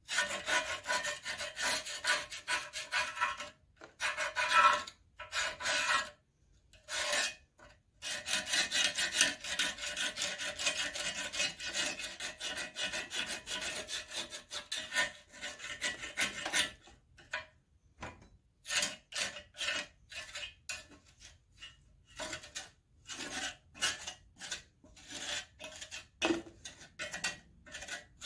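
A metal hand tool scraping rust and scale from inside the bore of a cast-iron engine water hopper. It goes in rapid strokes with a few short pauses for about sixteen seconds, then in separate short strokes.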